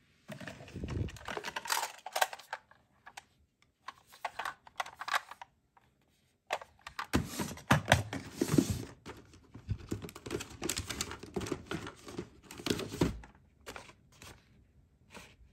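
Toy cars in plastic blister packs and small cardboard boxes being handled and shifted in a clear plastic storage bin: irregular rustling, crinkling and light plastic clatter, with a brief pause about six seconds in.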